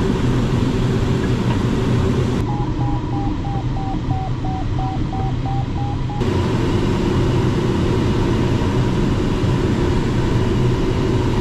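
Steady rush of airflow around a Ventus cT glider's cockpit in fast flight. In the middle, for about four seconds, a run of short electronic beeps from the glider's variometer, nearly four a second, their pitch wavering slightly.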